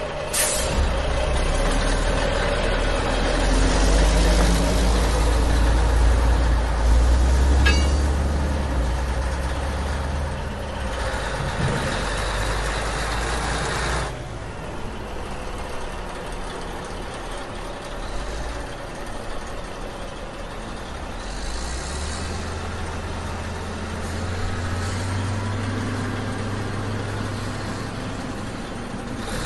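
Heavy truck engine running with a deep rumble. It is loudest in the first half, changes suddenly about halfway through, then carries on quieter.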